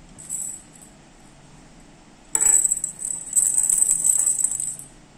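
A small bell cat toy jingling as it is shaken, in a short burst near the start and a longer, louder run from a little before halfway until near the end.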